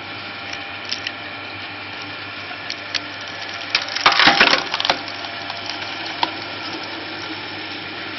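Screw-cone wood splitter, a 4 kW motor turning the threaded cone through a 1:3 belt drive, running with a steady hum while the cone bores into an oak round. The wood cracks and splinters several times, loudest in a burst of cracking about four seconds in as the round splits apart.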